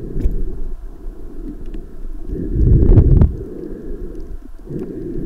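Muffled underwater water noise picked up by a submerged camera: a low, rumbling wash with a few faint clicks, swelling louder for about a second midway.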